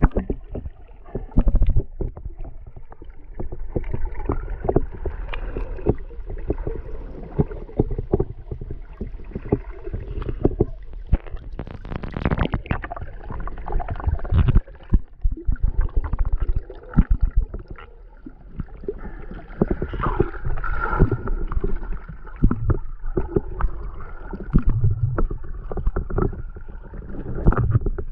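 Muffled underwater water noise picked up by a submerged action camera, with a low rumble and frequent irregular knocks and clicks.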